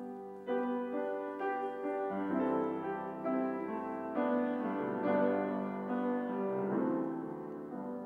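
Grand piano playing a slow, hymn-like passage in sustained chords, with a new chord struck about every second. It fades off near the end.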